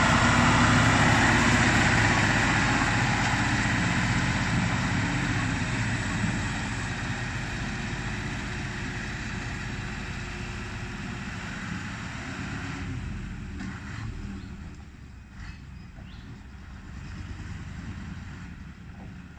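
Mitsubishi Fuso tractor unit's diesel engine, a big non-turbo engine, pulling a low-loader trailer past at close range, then fading steadily as the truck drives away, until only a faint rumble is left near the end.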